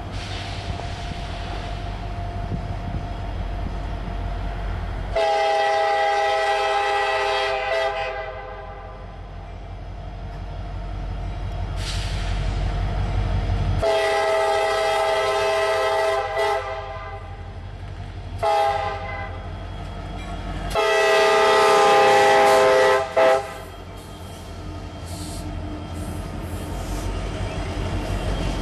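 Air horn of a CSX freight train led by two EMD SD70MAC diesel locomotives sounding the grade-crossing signal, long, long, short, long, as it approaches. Under the horn, the low rumble of the locomotives' diesel engines grows louder as they reach and pass the crossing near the end.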